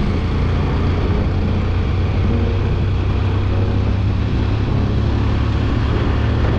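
Motorcycle engine running steadily while cruising at road speed, under the rush of wind on a helmet-mounted camera's microphone.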